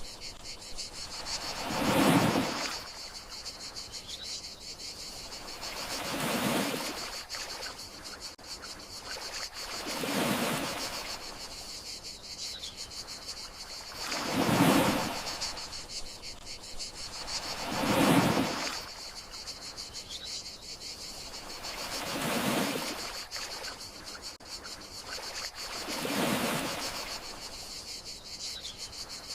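Gentle sea waves washing in and drawing back in a slow rhythm, a swell about every four seconds, over a steady high chirring of crickets.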